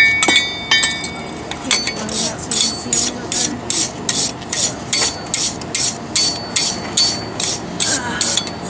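A couple of ringing blows on steel, then from about two seconds in steady, even strokes on metal, about two and a half a second, each a short harsh hiss with little ring.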